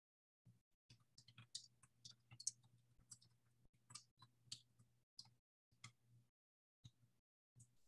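Faint, irregular clicking of a computer mouse and keyboard, with a faint low hum beneath.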